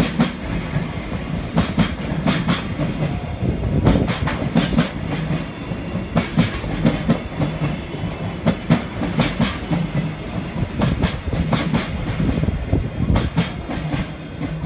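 JR freight train passing over a steady low rumble, its wagons' wheels clattering over rail joints in pairs, a new pair every second or two. The sound cuts off suddenly at the end.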